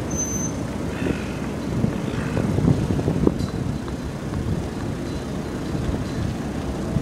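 Wind buffeting the microphone: a gusty, uneven low rumble, with a brief high beep just after the start.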